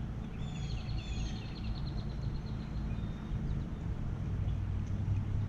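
Small birds chirping, with a fast trill in the first couple of seconds and fainter calls later, over a steady low rumble.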